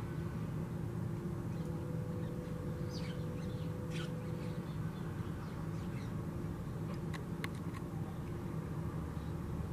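Steady low outdoor rumble with a faint hum. A few short, high bird calls come about three to four seconds in, and a few sharp clicks follow about seven seconds in.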